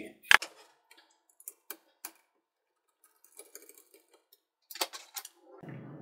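Scattered small clicks and taps of laptop parts being handled by hand: one sharp click just after the start, a few light ticks, then a cluster of clicks near the end.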